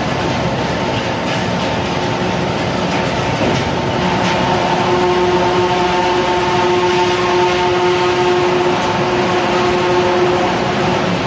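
Industrial rice-straw shredder and its belt conveyor running steadily, shredding paddy straw: a dense, loud mechanical noise. A humming whine of several pitches joins in about four seconds in, and the noise grows slightly louder.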